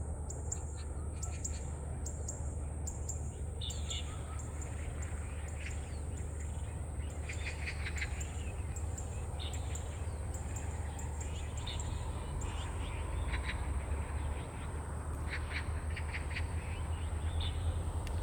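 Zitting cisticola giving short, sharp clicking call notes in small bursts every few seconds. Under them run a steady thin high-pitched tone and a low rumble.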